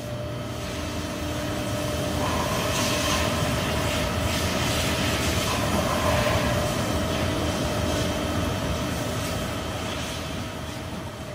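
Trumpf TrumaBend V170 hydraulic press brake running under power: a steady machine hum with a constant mid-pitched whine, its hiss swelling for a few seconds in the middle.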